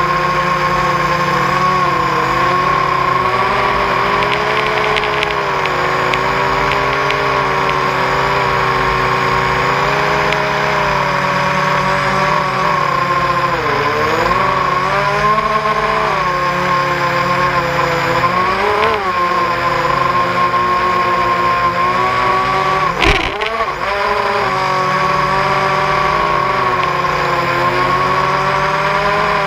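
ZMR250 FPV racing quadcopter's brushless motors and propellers whining, heard from on board, the pitch dipping and climbing several times with the throttle. There is a brief sharp knock about two-thirds of the way through.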